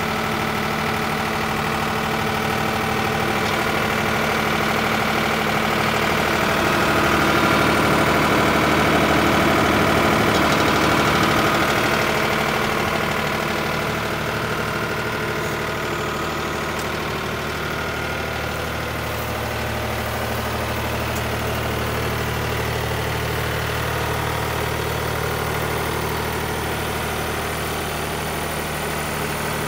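New Holland TN75DA tractor's four-cylinder diesel engine idling steadily. It grows a little louder around seven seconds in, then settles back.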